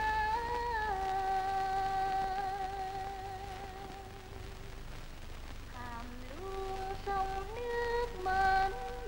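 Background film music: a slow melody carried by a single voice or instrument in long held notes with a slight waver, stepping down in pitch, then moving through quicker, shorter notes in the second half.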